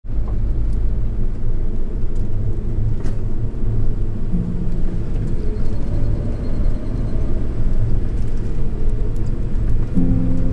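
Kei truck driving, heard from inside the cab: a steady low rumble of engine and road noise.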